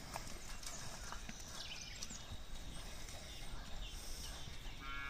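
Hooves of a horse and a steer on a dirt arena, faint scattered thuds over a steady low rumble. Right at the end an animal's call begins.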